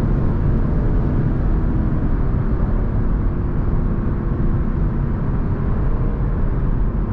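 Lexus LC500's naturally aspirated 5.0 V8 running at a steady pace under road and wind noise, with no rise or fall in engine pitch.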